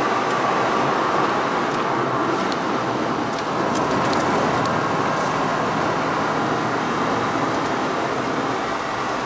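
Car engine and road noise heard from inside the cabin as the car is driven at speed, easing briefly about three and a half seconds in as it turns into a corner, then pulling again.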